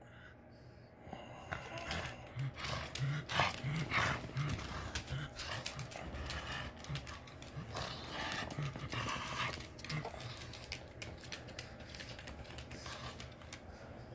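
Pug growling in short low bursts again and again while tugging at a plush toy, with scuffling and rustling as dog and toy are jerked about. The sounds start about a second and a half in and thin out near the end.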